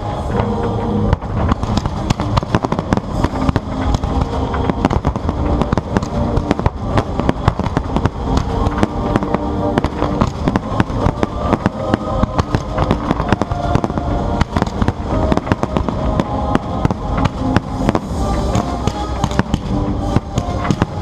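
Fireworks display going off in quick succession, a dense run of sharp bangs and crackles many times a second, over music played loud for a pyromusical show.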